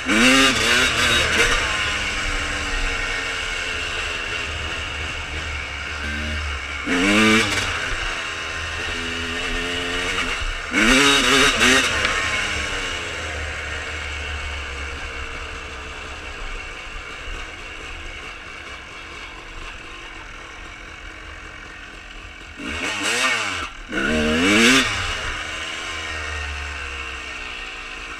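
1995 Honda CR250R's single-cylinder two-stroke engine, with Pro Circuit pipes, running as the bike rides along. It revs up in short throttle bursts with the pitch rising each time: once at the start, twice in the first half, and twice close together near the end. In between it runs lower and steadier.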